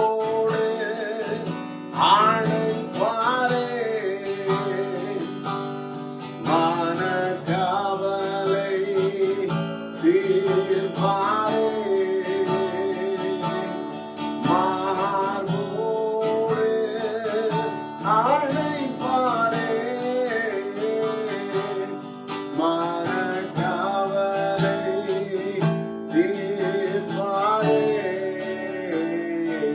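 Background music led by acoustic guitar, with a melody line that starts a new phrase every few seconds.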